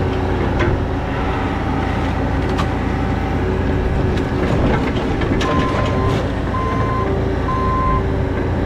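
Bobcat T66 compact track loader's diesel engine running steadily under work, with a few sharp knocks of debris. In the second half its reversing alarm beeps three times, about a second apart, as the machine backs up.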